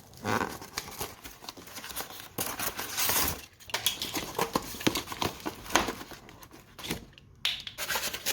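Cardboard boxes being opened: packaging torn and crinkled, with scattered knocks and clicks as the parts inside are handled.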